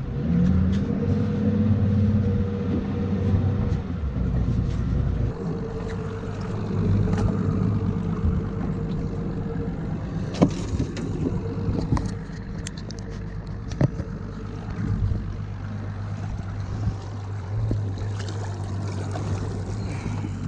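Boat engine running, rising in pitch about a second in as the throttle is pushed, then holding a steady hum. A few sharp knocks and clicks sound over it about halfway through.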